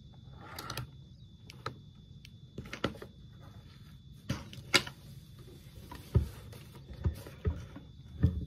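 Scattered plastic clicks and light knocks as a single-serve K-Cup coffee brewer is handled, its lid worked and the machine moved and set down, over a faint steady hum.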